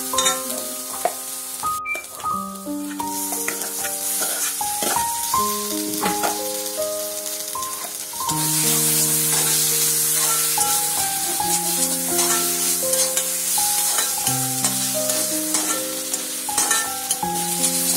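Spice and peanut paste sizzling in oil in a wok as a spatula stirs it. The sizzle gets louder about eight seconds in, as potato pieces go into the pan. A background melody of held notes plays throughout.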